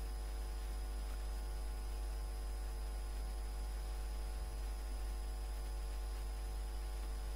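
Steady electrical mains hum with a faint buzz of overtones and a light hiss, picked up by the recording microphone, unchanging throughout.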